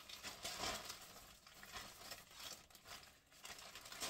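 Crinkling and rustling of a shipping bag and its packaging being opened and rummaged through by hand.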